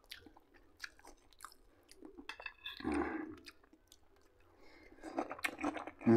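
A person chewing a mouthful of food close to the microphone, with small wet clicks and smacks, a louder mouth sound about three seconds in, and chewing growing busier near the end.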